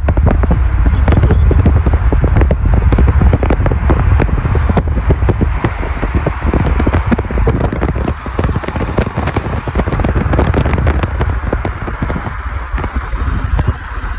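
Exhaust of a Volkswagen Golf Mk7 popping and crackling, a dense run of rapid, irregular cracks over the low rumble of engine, tyres and wind from a moving car. The cracks are thickest at first and thin out over the last few seconds.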